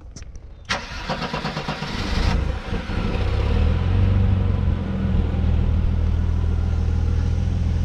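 Mercedes 190E's M103 straight-six being started: the starter cranks for about a second and a half, then the engine catches and settles into a steady idle. The idle is still a little shaky even with new Bosch injectors fitted to its KE-Jetronic fuel injection.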